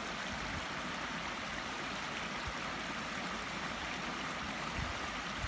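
Shallow river water flowing over a paved ford and spilling down its low weir edge: a steady rushing of water.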